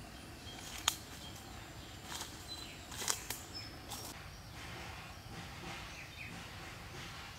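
Dry leaf litter and twigs crackling underfoot in a few sharp snaps and rustles over the first half, with a few faint high bird chirps.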